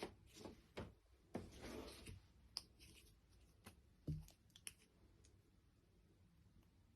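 A paintbrush being loaded with gouache paint: faint scattered clicks and short soft scrapes, mostly in the first few seconds, with a slightly stronger tap about four seconds in.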